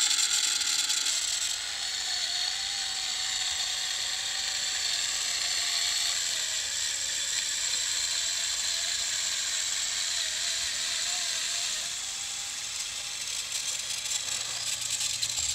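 The small electric motors and gearing of a homemade 3D-printed model tractor and its motor-driven rotavator whirring steadily with a faint wavering whine as the rotavator tills sand. The rotavator is running properly.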